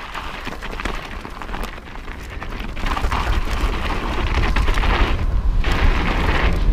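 Mountain bike rolling fast down a snowy dirt trail, heard from a bike- or rider-mounted action camera: tyre roar over snow and ground, rattling of the bike and wind rumbling on the microphone. The rumble grows louder about three seconds in as the bike picks up speed.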